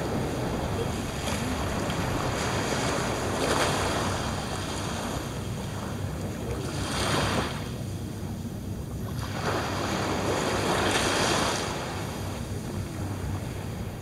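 Small waves breaking and washing up a sandy beach, swelling about every three to four seconds, with a steady low wind rumble on the microphone.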